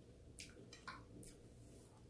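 Near silence broken by three faint, short clicks from someone eating a meal of stew and rice.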